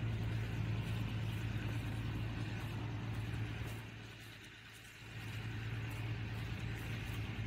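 Footsteps walking on a muddy track over a steady low hum, which drops away briefly about four seconds in.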